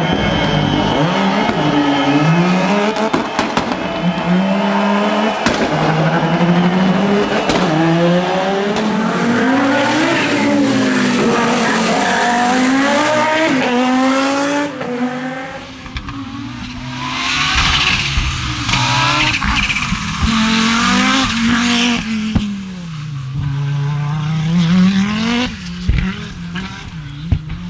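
Audi Quattro S1 E2 Group B rally car's turbocharged five-cylinder engine driven hard, its note climbing again and again through the revs and dropping back at each gear change and lift. A loud hiss of tyres joins in around the middle, and a few sharp cracks come near the end.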